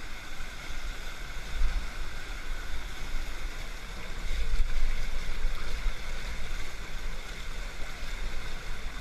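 Whitewater of a river rapid pouring over a rock close to the camera: a steady rushing noise with a heavy low rumble.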